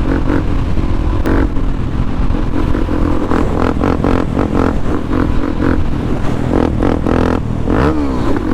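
Motorcycle engine running hard at close to 95 mph, with wind buffeting the mic. Near the end the engine note falls.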